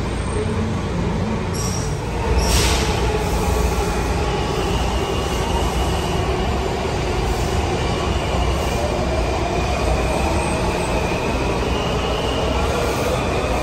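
Washington Metro Breda/Alstom 3000-series train pulling out of an underground station. There is a brief knock about two seconds in, then the motor whine rises in pitch as the train gathers speed, over a steady rumble with wheel squeal.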